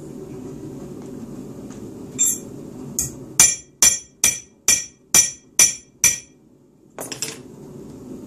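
Hammer striking metal: a lighter hit, then about eight sharp ringing blows at roughly two a second, and a final double knock near the end.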